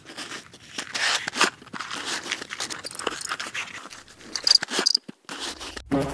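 Cardboard matchbox drawer being slid open: a dry, irregular scraping and rustling of rough cardboard in many short strokes, with a couple of brief high squeaky scrapes a little before the drawer is fully open.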